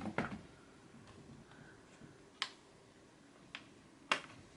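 A few separate light clicks and taps from a makeup brush and blush palette being handled, one about halfway through and the sharpest near the end.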